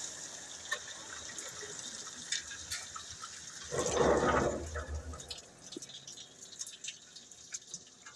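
Water running and dripping, with a brief gush about four seconds in and scattered drips fading toward the end.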